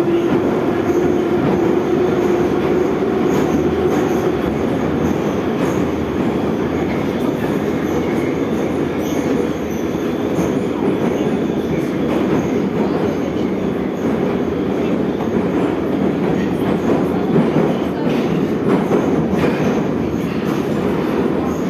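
Metro train running through a tunnel, heard from inside the car: a steady, loud rumble of wheels on rails. A steady tone fades out in the first two seconds, and a few light clicks of the wheels over rail joints come later.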